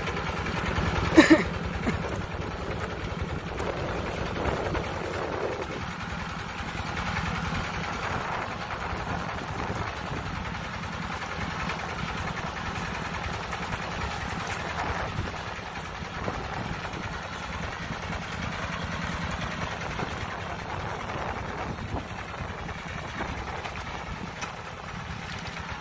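Engine of a homemade ratoon-rice stripper built from a walk-behind hand tiller, running steadily as the machine drives through the flooded paddy. A single sharp clank stands out about a second in.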